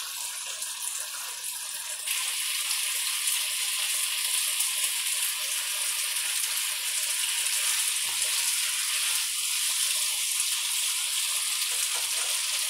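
Sweet and sour sauce sizzling and bubbling in a wok around pork ribs and vegetables, a steady hiss that gets louder about two seconds in.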